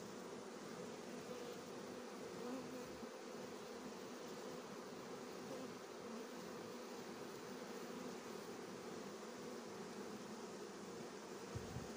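Swarm of honey bees buzzing at a hive entrance in a steady, even hum as the colony moves into an empty hive box.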